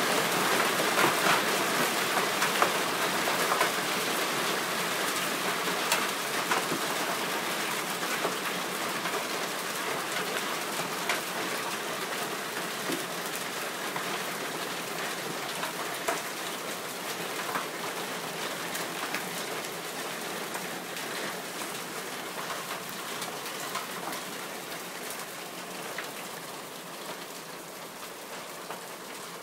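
Hailstorm: hailstones falling thick and fast on the ground, a dense patter of small impacts with sharper clicks scattered through it. It slowly dies down, growing steadily quieter toward the end.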